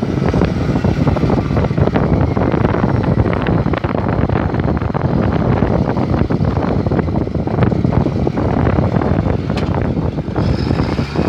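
Tractor running steadily as it pulls a four-row hydraulic cone roller through the field, with many small knocks and rattles throughout.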